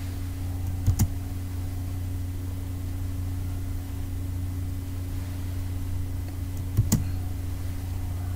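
Two short double clicks, about a second in and again near seven seconds, from a computer being clicked to advance a slideshow, over a steady low electrical hum.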